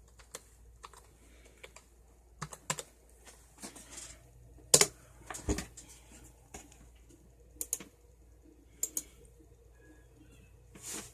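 Typing on a computer keyboard: irregular keystrokes in short runs with pauses, a couple of louder key presses about five seconds in.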